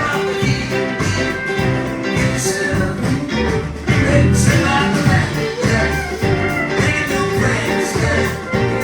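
Live band playing a rock number with drums, bass and guitar to a steady beat, at a sound check.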